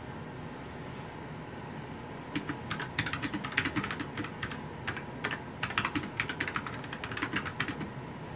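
Typing on a compact mechanical keyboard: a fast, uneven run of key clicks that starts about two seconds in and stops shortly before the end, over a faint steady hum.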